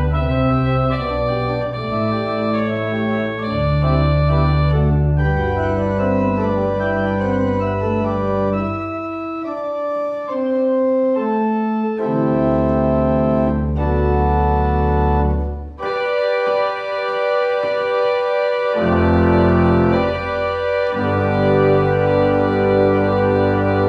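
Organ playing a slow piece of held chords over deep bass notes, the chords changing every second or so, with a lighter, thinner passage near the middle.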